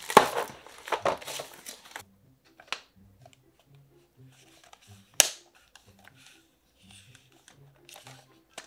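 Oil pastel sticks clattering as a hand rummages through a box of them, with scattered sharp clicks of sticks knocking against each other and into plastic cups. The loudest clatter comes in the first two seconds and one sharp click comes about five seconds in, over faint background music with a slow, stepping melody.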